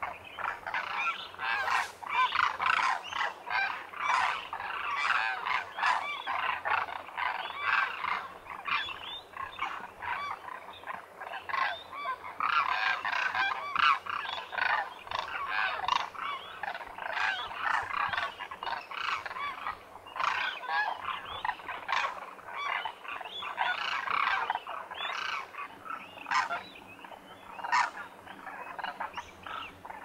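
A large flock of demoiselle cranes calling, many overlapping calls running on without a break.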